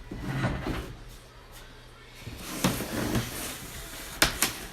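Plastic TV housing being pried and pulled apart by hand: scraping and creaking of plastic, then two sharp clicks close together near the end as the snap-fit clips let go.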